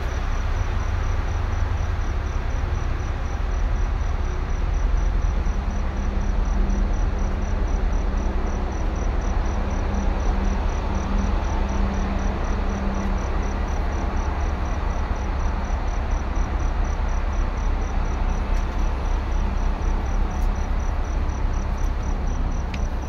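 Steady low rumble of a moving vehicle, with insects chirping in an even, rapid pulse high above it.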